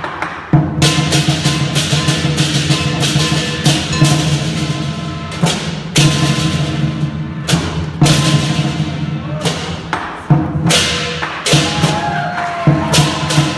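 Lion dance percussion: a drum beating steadily under frequent crashing cymbal strikes, with a low ringing tone held beneath.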